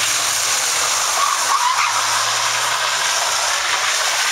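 Car drifting on tarmac: the engine is held at high revs while the spinning rear tyres give a steady loud hiss and scrub, with a brief tyre squeal about a second in.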